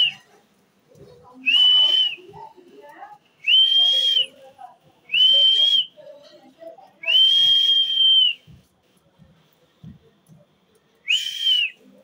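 Alexandrine parakeet giving loud whistled notes: five clear whistles, each about half a second to a second long. Each jumps up, holds a steady high pitch and drops off at the end, and the fourth whistle, a little past the middle, is the longest.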